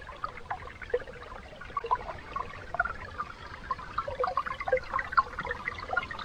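Creek water trickling and gurgling through open water between ice and sticks: a steady run of small, irregular bubbling notes.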